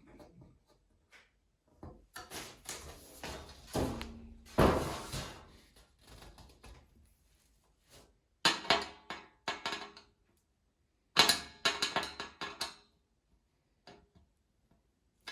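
Knocks, clicks and scraping from working a hand Phillips screwdriver and plastic parts as screws are driven through a plastic Packout top into a plastic cleat. The sound comes in several separate bursts, the loudest a sharp knock about four and a half seconds in.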